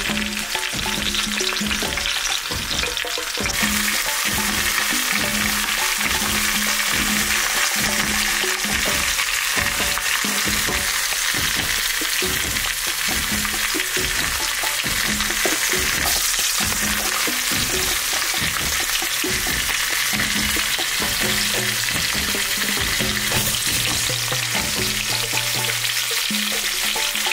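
A whole oxtail searing in hot oil in a large pan, a steady loud sizzle and spatter of frying meat, with background music playing underneath.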